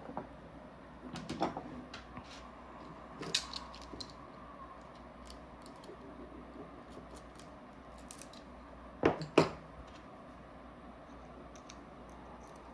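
Small parts of a paintball marker being handled during disassembly: scattered light clicks and taps, with two sharper knocks about nine seconds in.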